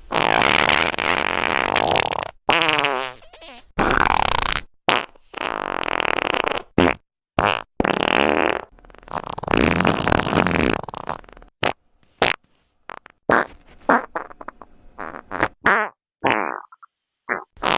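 Fart sound effects played one after another: a string of separate fart noises of varying length, some long and buzzing, others short, with brief silences between them. One glides down in pitch about three seconds in, and the last few seconds hold shorter, sparser ones.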